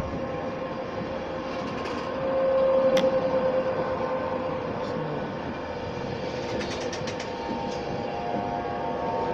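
Class 91 electric locomotive pulling an InterCity 225 train out of the station, with a steady electric hum and whine that swells about two to three seconds in. A single sharp click comes at about three seconds.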